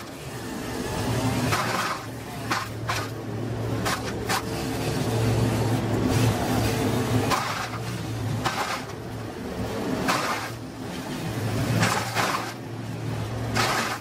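Kioti RX7320 tractor's diesel engine running steadily, driving a Wallenstein BX62 PTO brush chipper. Repeated crackling and snapping of spruce branches being dragged over the brush pile and fed into the chipper.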